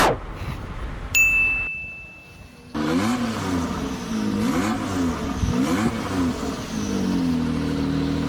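A single ding about a second in, then an engine revving, its pitch rising and falling several times before settling to a steady run near the end.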